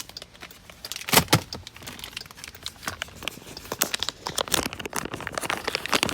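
Keys being handled and a key pulled out: a run of clinks, clicks and rustling, the loudest about a second in.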